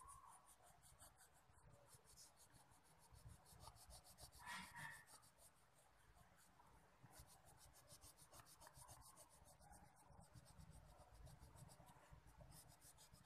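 Faint scratching of a wax crayon rubbed quickly back and forth on paper while colouring in a drawing.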